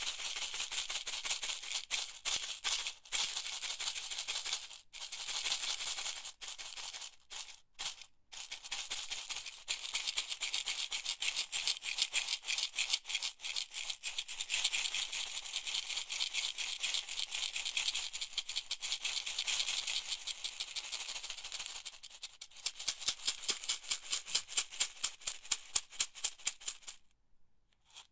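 A box of 150 metal office pins being shaken, the pins rattling in a dense, high clatter with a few short breaks. Near the end the rattle turns into a quick run of separate, louder ticks, then stops.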